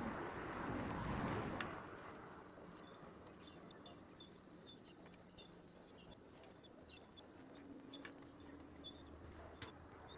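Small birds chirping: many short, high chirps in quick succession, after a brief rustling noise in the first second or so.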